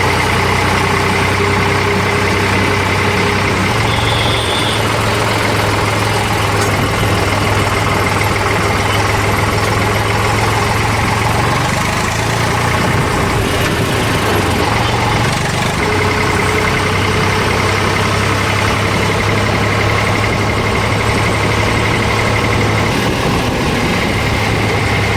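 Eicher 485 tractor's diesel engine running steadily on the move, its note shifting briefly about halfway through.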